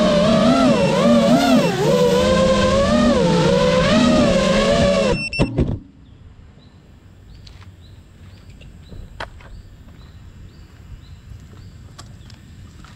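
Geprc Mark 5 FPV quadcopter's brushless motors and propellers buzzing loudly, the pitch rising and falling with the throttle, heard from the drone's own onboard GoPro. About five seconds in, the quad touches down with a few knocks and the motors cut off, leaving a quiet background with scattered clicks and faint, evenly repeated high chirps.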